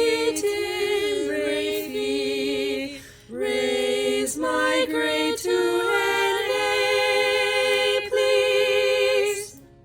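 A small group of voices singing a cappella in harmony, in held notes with a brief break about three seconds in. The singing stops shortly before the end.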